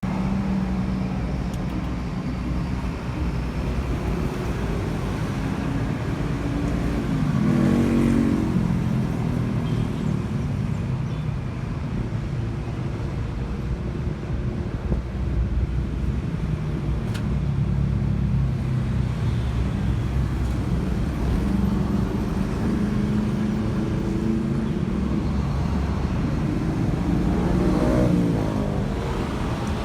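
Road traffic: a steady engine rumble that swells louder as vehicles pass, once about 8 s in and again near the end.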